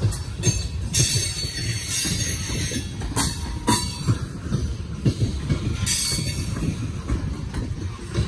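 Coal gondola cars of a freight train rolling past on the track: a steady low noise of steel wheels on rail, broken by irregular metallic clanks and knocks.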